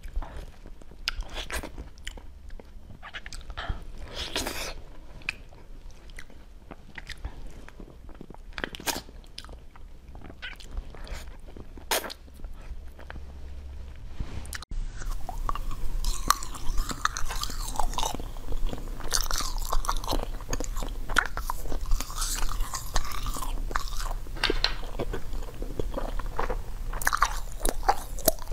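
Close-miked eating sounds: sparse, soft wet chewing and mouth clicks while durian flesh is eaten, then after an abrupt cut about halfway through, louder and busier crisp crunching and chewing.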